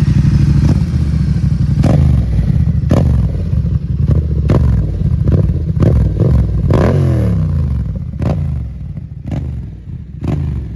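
Yamaha MT-07's parallel-twin engine idling through an aftermarket Arrow exhaust line, revved in about ten short throttle blips, each dropping back to idle.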